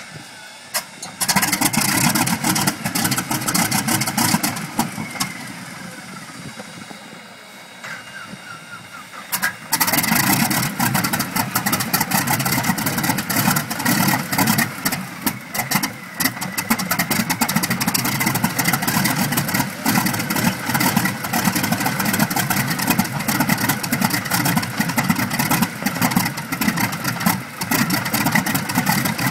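North American P-64's Wright R-1820 Cyclone nine-cylinder radial engine being started after about 20 years without running. It turns over for a few seconds, eases off, then catches about ten seconds in and keeps running loudly.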